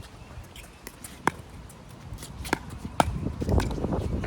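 Wind buffeting the microphone in a low rumble that grows heavier in the second half, with three sharp clacks of hard objects striking.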